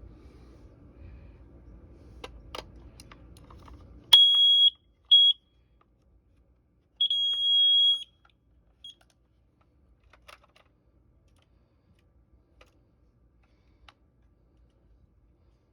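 Kidde carbon monoxide alarm's sounder beeping as AA batteries are fitted: a half-second high beep, a short one, then a one-second beep and a brief blip. A few plastic handling clicks come before and after.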